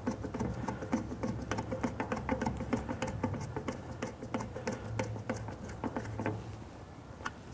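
Hand screwdriver driving a small screw into a plastic switch-box cover: a rapid, uneven run of small clicks and scratches that thins out and stops about six and a half seconds in.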